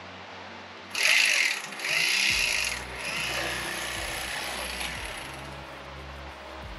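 Electric fillet knife running as it cuts crappie fillets, starting sharply about a second in, loudest for about two seconds with a brief dip, then running quieter until near the end; background music underneath.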